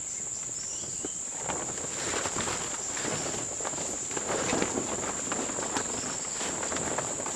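Steady high-pitched drone of forest insects, with irregular rustling and crackling handling noise starting about a second and a half in.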